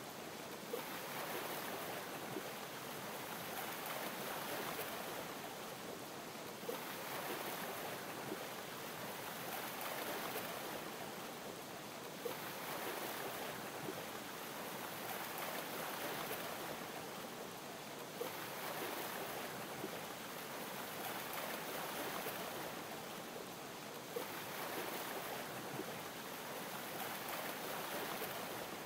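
Water ambience of ocean waves lapping, swelling and easing about every six seconds. A sharp tick comes as each swell begins, with faint scattered small pops throughout.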